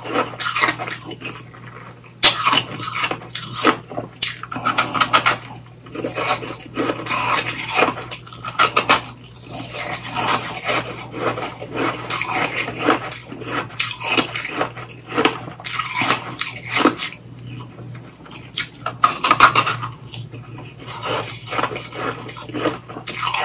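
Close-up crunching and chewing of a refrozen slushy ice popsicle: clusters of crisp crunches with brief pauses between bites, loudest about two seconds in and again near the three-quarter mark.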